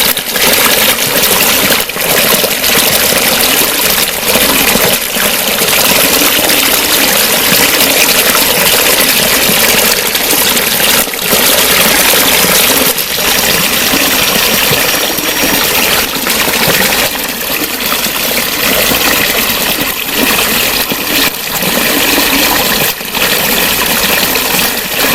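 Flowing water gurgling and trickling steadily and fairly loudly, with brief splashy clicks now and then.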